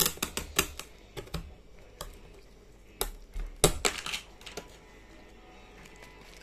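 Cutlery clicking and tapping against plates while eating, in scattered sharp clicks that are thickest and loudest about three to four seconds in.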